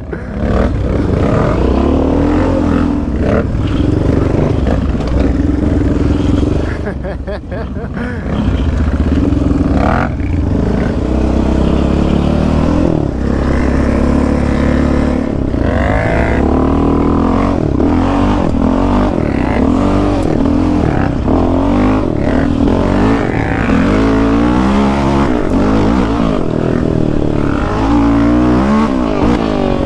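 ATV engine running hard under the rider, revving up and dropping back again and again through the ride. About seven seconds in the throttle eases off briefly, then it picks up again.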